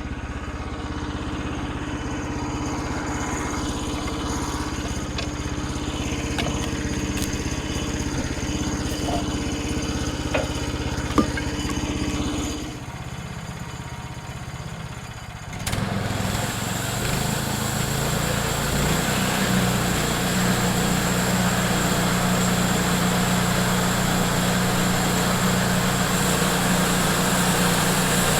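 A gasoline sawmill engine running steadily. About 13 s in it drops quieter for a few seconds, then comes back louder and rougher, with a hiss over it, until the end.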